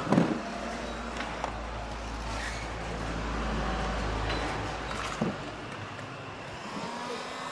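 A low engine-like rumble swells for a few seconds and fades, with a knock at the start and a few light clicks. Near the end a heat gun's motor starts with a slightly rising whine.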